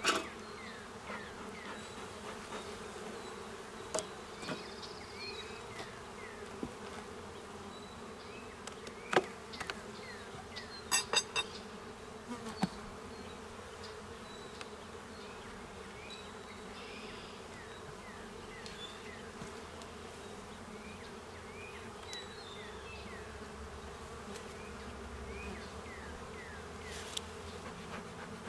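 Honeybee colony buzzing steadily from an opened hive. A few sharp knocks and clicks come through it, with a quick cluster of them about 11 seconds in.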